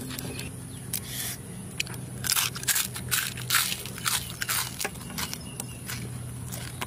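Crisp crunching of cooked scorpions being bitten and chewed, their shells cracking in a quick run of sharp crunches through the middle.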